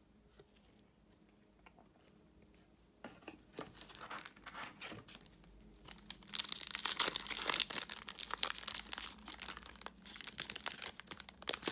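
A trading-card pack's plastic wrapper being torn open and crinkled in the hands. The crackling starts about three seconds in and is loudest around the middle.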